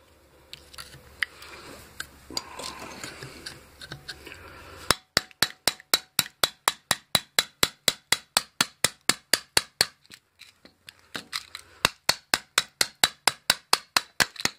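Rapid, even hammer blows on a metal bar driven into a microwave transformer's steel core to knock the coil out, about five strikes a second. The strikes come in two runs with a pause of a second or two between them, after a few seconds of quiet scraping and rustling.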